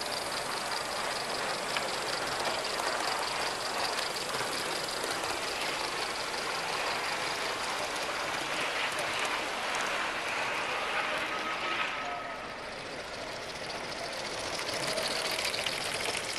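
Model live-steam locomotives running on a track layout give a steady rushing noise of steam exhaust and wheels on the rails. The noise drops briefly about twelve seconds in.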